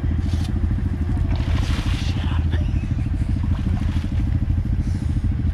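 ATV engine running steadily at idle, a low, even pulsing throughout, with a short burst of noise about two seconds in.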